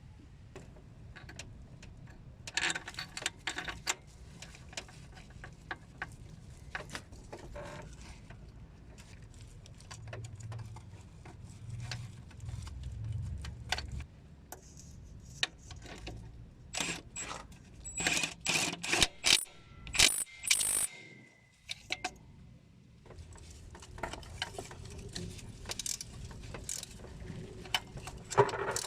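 Metal hand tools and parts clicking and clinking in irregular knocks while a van's clutch is being replaced. A run of loud, sharp metallic clicks with a brief ringing comes about two-thirds through.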